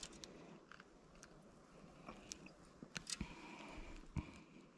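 Faint close handling noises of a caught largemouth bass being unhooked by hand: scattered sharp clicks and short rubbing and scraping sounds.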